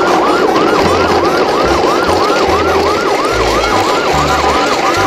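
Electronic yelp siren, rising and falling fast and evenly about four times a second, over low bass notes that step between pitches.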